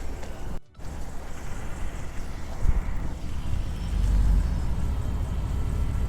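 Low engine rumble of a motor vehicle. It cuts out briefly near the start, surges about two and a half seconds in, and grows louder from about four seconds on.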